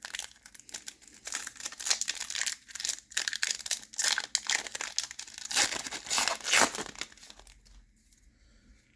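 A trading card pack's wrapper being torn open and crinkled by hand, a dense run of crackling and tearing that dies away near the end.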